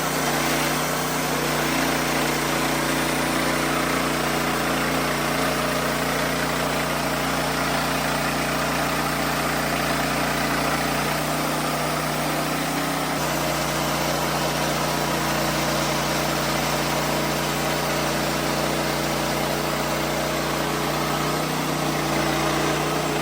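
Wood-Mizer LX55 portable bandsaw mill running steadily, its engine driving the blade through a large, hard hickory log. The engine note shifts slightly about thirteen seconds in.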